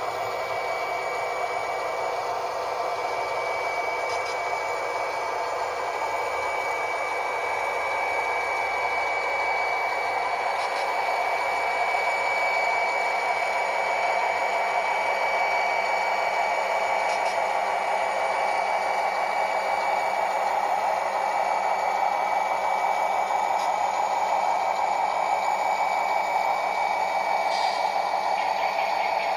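Model train of diesel locomotives and flatcars running past: a steady whir and wheel rumble with a thin high whine, getting a little louder partway through.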